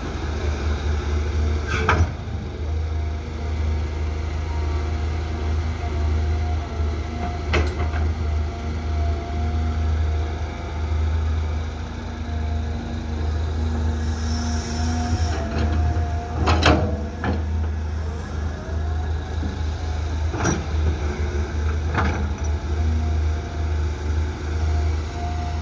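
Caterpillar hydraulic excavator working. Its diesel engine runs steadily with a low hum, a faint steady whine comes and goes, and about five sharp metallic clanks ring out.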